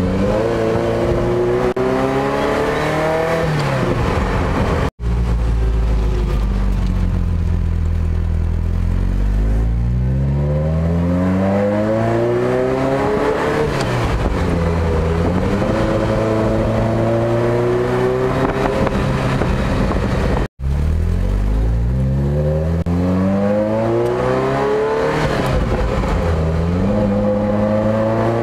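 Ferrari 308 GTSi's V8 engine through a Tubi stage two exhaust, heard from inside the cabin, climbing in revs and dropping back at each gear change, several times over. The sound cuts out for an instant twice.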